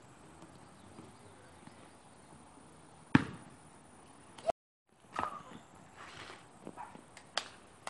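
A basketball hitting hard with one sharp knock about three seconds in, over a quiet outdoor background; a few fainter knocks and a short cry follow in the second half.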